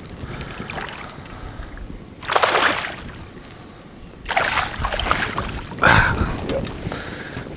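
Hooked smallmouth bass thrashing and splashing at the surface beside the boat as it is played in: three bursts of splashing, about two, four and a half, and six seconds in, over a steady low rumble of wind and river.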